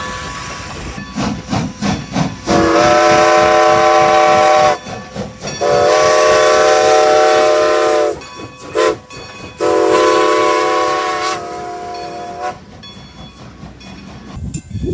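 Steam locomotive whistle blowing two long blasts, one short and one long, the grade-crossing signal, with steam hiss between and after the blasts. Before the whistle there are rapid exhaust chuffs, about five a second.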